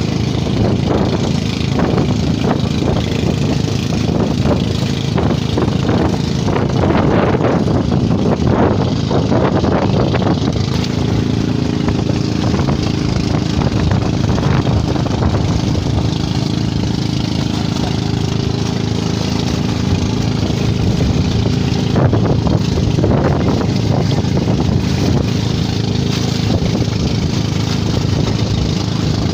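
Engine of a motorized outrigger boat (bangka) running steadily while under way, with water splashing against the hull and outrigger.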